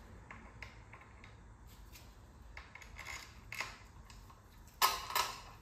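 Scattered small metal clicks and clinks of hand tools and screws on the Suzuki Vanvan 50's left engine cover as it is unscrewed and worked loose, with two louder clanks about five seconds in.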